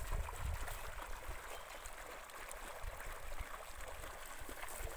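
Groundwater welling up out of the soil under pressure, bubbling and gurgling steadily as it boils up through a shallow muddy puddle.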